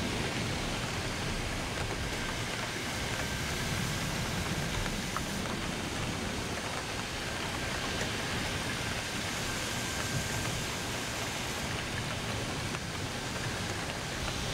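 Steady hiss of rain falling, with a few faint drop ticks.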